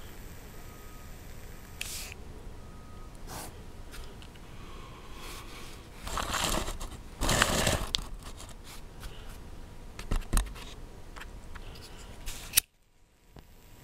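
Handling noises as a homemade copper-tube alcohol stove and its drink-can burner are moved about on a concrete floor: scattered clicks and knocks with a longer rasping scrape about six to eight seconds in. The sound cuts out suddenly near the end.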